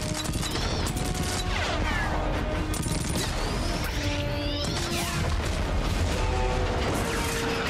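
Action-film battle soundtrack: an orchestral score plays under explosions and bursts of gunfire, with repeated screeching glides that rise and fall.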